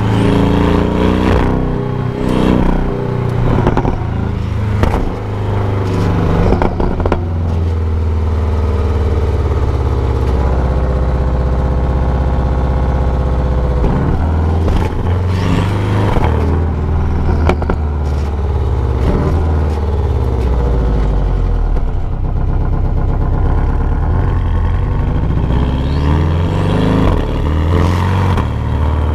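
Stock exhaust of a 2019 Porsche 718 Cayman GTS's turbocharged flat-four, heard close to the tailpipe while the car is driven. The engine note rises and falls with revs several times and holds steady for a few seconds in the middle.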